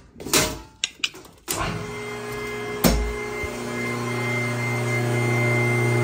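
A few clicks, then about a second and a half in the electric motor and pump of a hydraulic power pack for a cattle squeeze chute start up and run with a steady hum; a single sharp knock about three seconds in.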